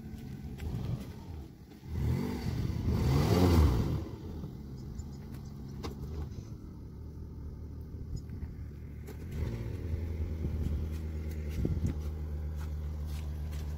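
Toyota Prado 4WD engine revving up and back down for about two seconds while trying to pull a boat trailer bogged in mud and soft sand. It then runs at a steady idle from about ten seconds in.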